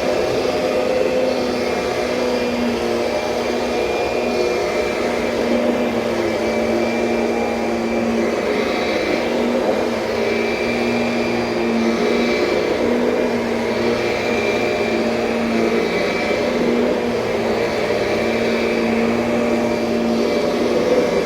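2007 Kirby Sentria upright vacuum cleaner running steadily with a humming motor whine, its sound swelling and easing slightly every second or two as it is worked across the floor.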